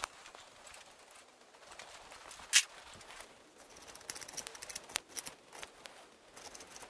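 Faint, scattered clicks and light ticks of small metal parts being handled, with one sharper click about two and a half seconds in and a quick run of small ticks past the middle; no wire wheel or motor is running.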